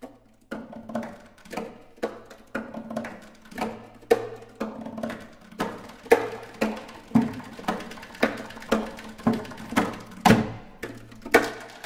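Classical guitars played as percussion: hands knocking and tapping on the wooden bodies in an uneven rhythm of sharp strikes, about two a second, some louder than others. A low steady tone hums under some stretches.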